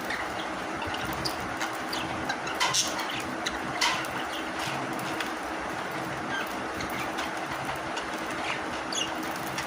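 Pet budgerigars pecking at puffed rice, giving a few short sharp clicks and brief chirps over a steady background hum.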